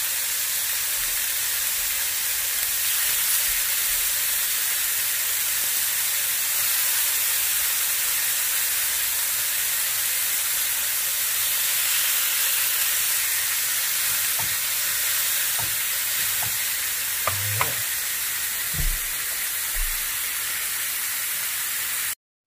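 Seasoned monkfish pieces sizzling steadily as they sear in hot oil in a nonstick frying pan, a constant frying hiss. A few light knocks in the second half, and the sizzle cuts off abruptly at the very end.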